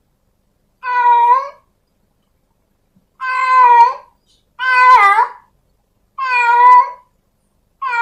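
Calico kitten meowing: five short, high meows with silent gaps between them. The one near the middle dips and rises in pitch.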